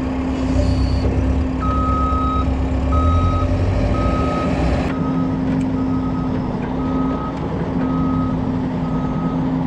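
Forklift's reversing alarm beeping at just over one beep a second, starting about a second and a half in, over the steady hum of a running engine; a low rumble underneath falls away about halfway through.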